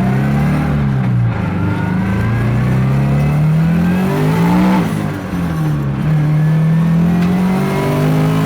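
Turbocharged Scion FR-S's 2.0-litre flat-four engine accelerating hard under boost: the revs climb, fall back twice at the upshifts, then hold nearly steady.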